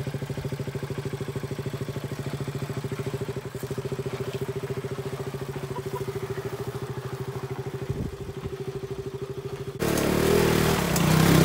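KTM RC 200 motorcycle's single-cylinder engine running at low speed with a fast, even pulse as the bike is eased over rocks, with a single thump. Near the end it suddenly gets louder and rougher as the bike pulls away over loose gravel.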